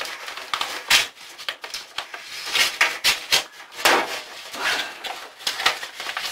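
Paper envelope rustling and crinkling as it is handled and pulled free, with a few sharp knocks against a metal worktop.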